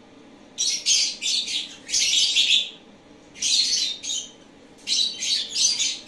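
Lovebirds chattering: high-pitched chirps and squawks in four bursts of about a second each, with short lulls between.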